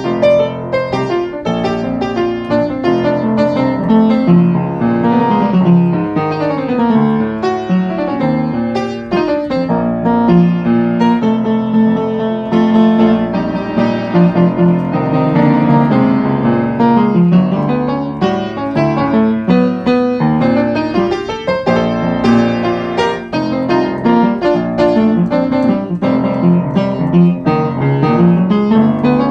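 Piano music: many quick notes, with runs that fall and then rise again.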